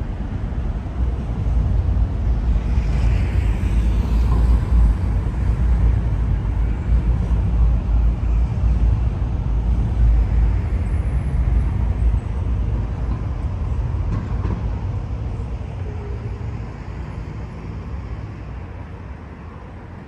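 Outdoor city traffic rumble, a vehicle passing close by: a low rumble that swells in the first few seconds and then slowly fades toward the end.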